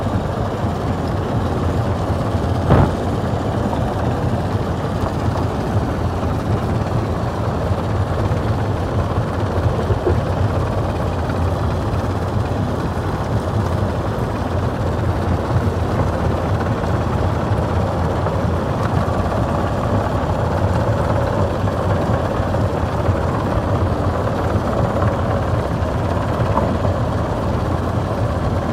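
Stone crusher running steadily with a heavy mechanical rumble as rock is crushed, with one sharp crack about three seconds in.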